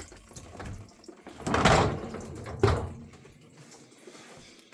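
Dishwasher being handled, with a short noisy slide and rattle about a second and a half in, then a sharp knock about a second later.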